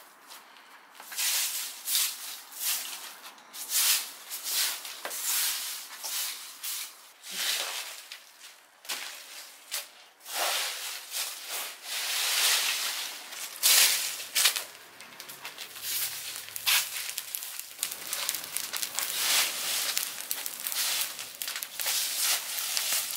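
A plastic-bristled broom sweeping dry leaves across paving stones in repeated scratchy strokes. Near the end, a burning pile of leaves crackles.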